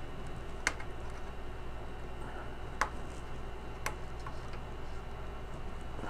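Three sharp plastic clicks, spread over a few seconds, as a small wire-harness connector is worked loose from a circuit board inside an ATM. A steady low hum runs underneath.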